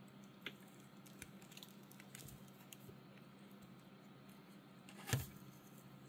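Faint clicks of a plastic action figure's joints being worked by hand, with one louder plastic pop about five seconds in as the arm comes apart at its small bicep peg.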